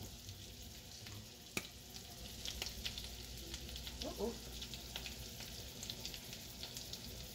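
Butter and garlic sizzling gently in a frying pan, a steady faint frying hiss with scattered small pops.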